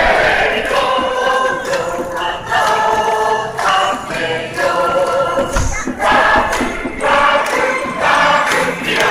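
A huge baseball-stadium crowd of Carp fans singing a cheering song together in unison, steady and loud.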